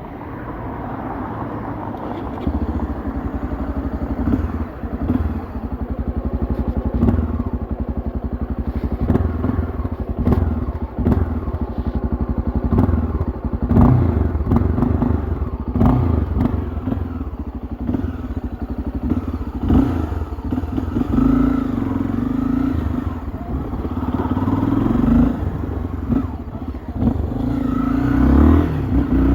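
Honda XRE 300's single-cylinder engine through its stock exhaust while riding, the engine note rising and falling with the throttle. It picks up over the first couple of seconds, with frequent short thumps over the engine sound.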